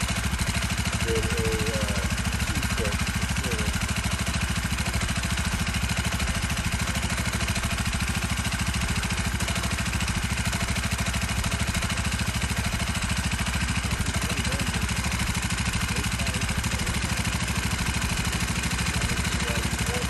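Small 49cc four-stroke motorized-bicycle kit engine running steadily at idle, newly started after the build.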